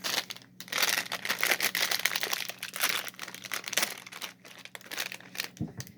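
Plastic candy packaging crinkling as a bag of banana gummies is opened and handled, an uneven run of crackles.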